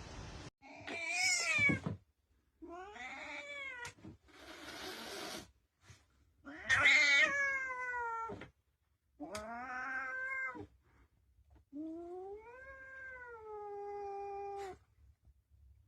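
Domestic cat meowing over and over: five drawn-out meows that bend up and down in pitch, the last and longest about three seconds. A short rushing noise comes between the second and third meows.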